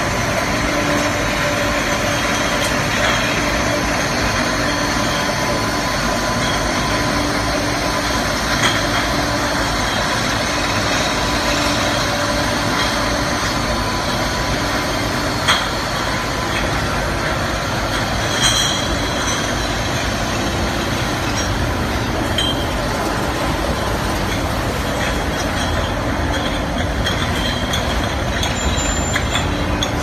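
YQ-200 automatic glass bottle washing machine and its bottle conveyor running, a steady machinery noise, with a few sharp clinks of glass bottles knocking together on the line.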